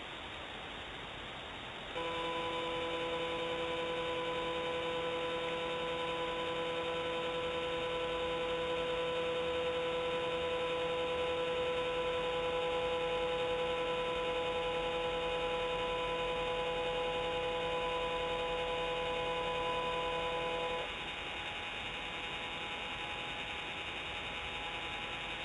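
Steady electrical hum made of several held tones over an even hiss. It comes on abruptly about two seconds in and drops to a weaker hum near the end.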